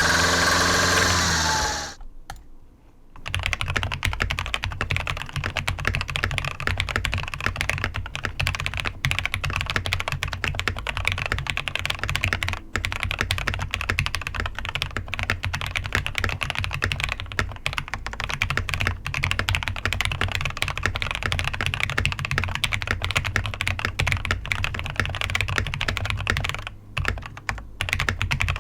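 Continuous typing on a Royal Kludge RK G68 mechanical keyboard with lubed and filmed Huano red linear switches, foam in the case, tape on the PCB and PBT keycaps. The keystrokes start about three seconds in, after a brief loud pitched sound at the start.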